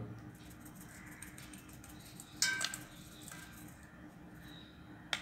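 A small steel cup clinks against the rim of a stainless steel bowl as brown sugar is tipped out of it, ringing briefly about halfway through, with a sharp click near the end.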